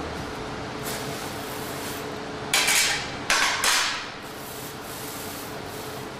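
Thin pencil leads being handled in a metal tray: three short scraping rushes about a second in a row, midway through, with a fainter one near the start, over a steady faint hum.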